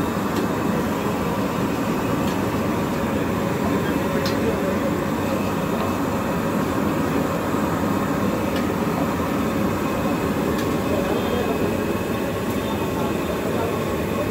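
Steady, even roar of a gas burner under a karahi of deep-frying bedai at a street food stall, with a few faint clicks of utensils.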